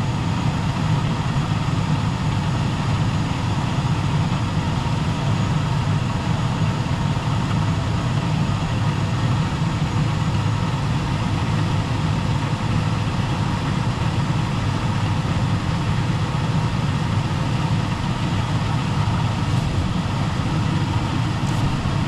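Gas furnace running with burners firing and blower on: a steady low rumble with a faint steady hum over it. Its gas pressure is set too high, which the technician thinks may be causing the noise.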